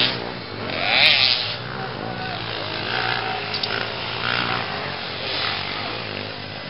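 Motocross dirt bike engines revving as the bikes race on a dirt track, their pitch rising and falling, loudest about a second in.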